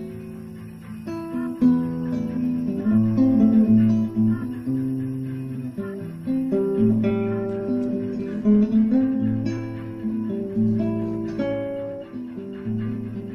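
Guitar music: single plucked notes picked out one after another over held low notes.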